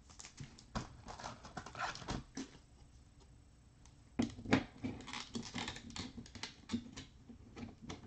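A trading card being handled in a clear plastic sleeve and holder: irregular plastic clicks, taps and crinkles, in two spells with a quieter pause of about a second and a half between them.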